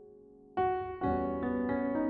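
Background piano music: a held chord fades, then new notes and chords are struck about half a second in and a few more times after.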